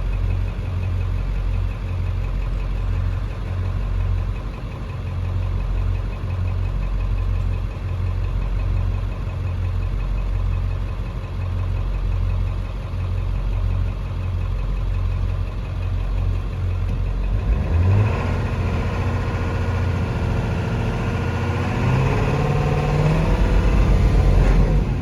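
Ford 7.3L Powerstroke turbo-diesel V8 idling steadily, then revved up several times near the end, its pitch rising and falling. It is a truck with a low-power complaint, and its sound is judged not healthy, which the mechanic ties to a lack of fuel pressure.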